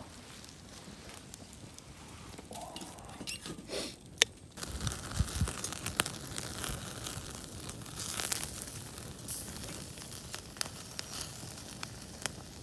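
Wood campfire crackling, with scattered sharp pops and one louder pop about four seconds in, over rustling and crinkling handling noise.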